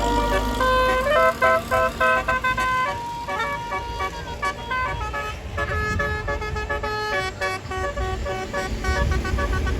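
Multi-trumpet telolet bus horn playing a quick tune of short, stepped notes, several pitches sounding at once. A low vehicle rumble runs underneath and grows heavier near the end.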